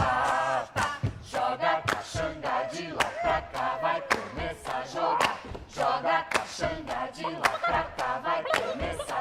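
Several voices singing together in a choir-like sound, broken by many short, sharp clicks.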